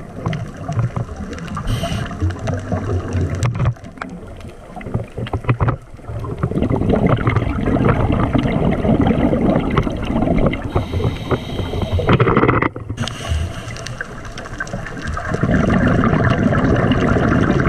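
Underwater scuba breathing through a regulator: long surges of exhaled bubbles, with quieter spells between them where the high hiss of an inhalation comes through, about two seconds in and again around eleven seconds in.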